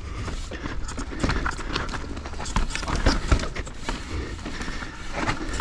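Transition Spire mountain bike rattling down a rocky trail: irregular clacks and knocks from the bike and its tyres striking rock, over a low rumble.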